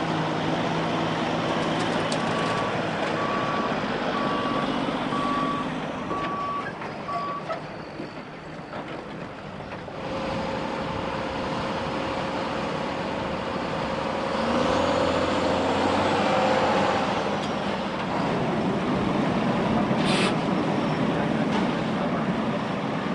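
Heavy diesel dump trucks and earthmoving machinery running. A backup alarm beeps about once a second for several seconds early on, and there is a short hiss near the end.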